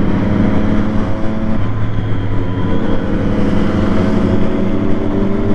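Sport motorcycle engines and exhaust running at a steady highway cruise, with wind and road noise over them.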